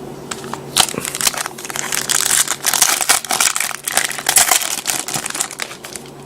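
Plastic foil wrapper of a trading card pack crinkling and tearing as the pack is opened. A dense run of crackles starts about a second in and eases off near the end.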